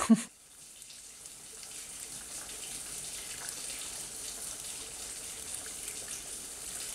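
Steady hiss of falling rain, fading in over the first two seconds and then holding even.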